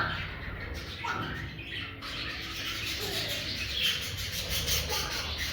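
Pet budgerigars chirping and chattering: several short gliding chirps over a dense, high-pitched twittering chatter.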